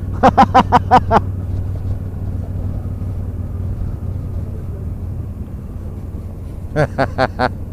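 Honda NT1100 parallel-twin motorcycle engine running steadily at low speed, a constant low hum with road noise. Short bursts of voice come near the start and again near the end.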